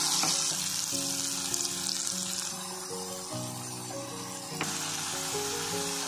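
Onions and ginger-garlic paste frying in hot oil in a kadhai, sizzling as dry spice powders are stirred in with a wooden spoon. The sizzle eases off about two and a half seconds in. Background music with held notes plays underneath.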